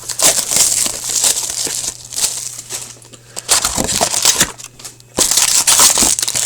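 Crinkling and tearing of hockey card packaging as a card box and its packs are opened by hand, in several irregular handling bursts.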